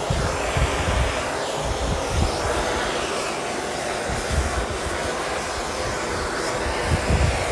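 Hose-fed gas torch burning with a steady rushing hiss and an uneven low rumble. Its flame is heating the bare steel body panel for lead loading. The flame shuts off right at the end.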